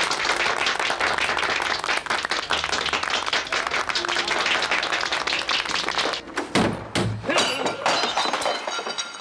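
A crowd of people applauding. About six and a half seconds in, the clapping cuts off and a few dull thuds follow.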